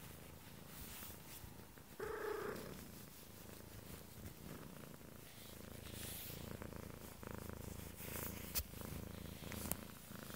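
Domestic cat purring steadily as it is stroked. About two seconds in there is a brief louder sound, and near the end there are a couple of sharp clicks.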